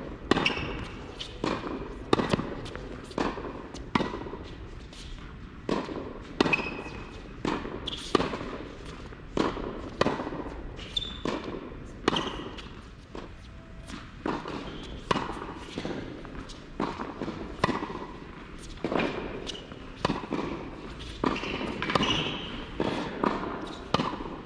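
Tennis balls being struck by a racquet and bouncing on an indoor hard court in a steady rally of groundstrokes: sharp pops about once or twice a second, each echoing in the large hall.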